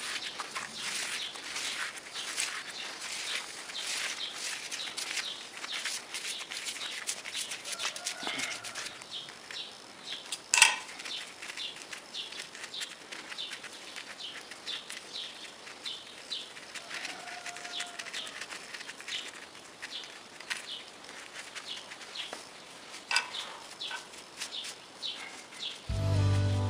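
Hand tap being turned by a bar tap wrench in a drilled steel plate, giving a run of irregular small clicks and creaks as it cuts thread, with one sharp click about ten seconds in. Music starts right at the end.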